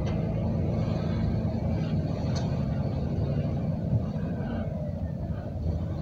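A 1999 Chevrolet Astro van's engine running steadily as it rolls slowly, heard from inside the cab as a low hum with road noise.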